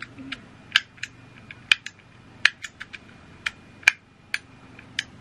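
Handheld embossing label maker being worked: a dozen or so sharp plastic clicks at uneven intervals, some much louder than others, as the letter dial is turned and the handle squeezed to stamp characters onto the tape.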